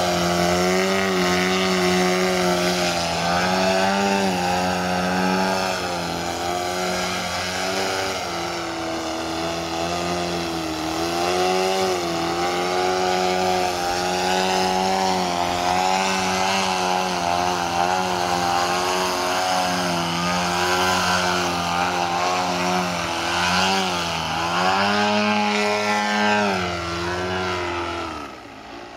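DA-100 twin-cylinder two-stroke gas engine on a giant-scale MX-2 aerobatic model plane, running while it hovers nose-up. The throttle is worked continually, so the engine note rises and falls again and again. The sound drops away near the end.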